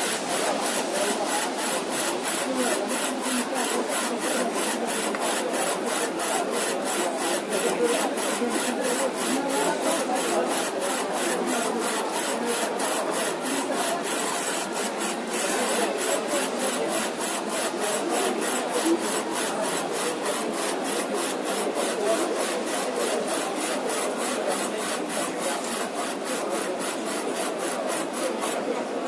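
Textile printer running, its print carriage shuttling back and forth across a sleeve with an even, rasping rhythm of about three strokes a second over a steady mechanical hum.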